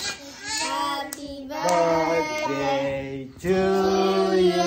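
Children and a man singing together in long held notes, with a couple of hand claps about a second in.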